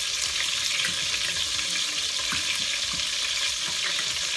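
Steady sizzling hiss of a veal roast cooking in a steel pot on the stove, with a few faint ticks as fingers break up canned tuna in a small glass bowl.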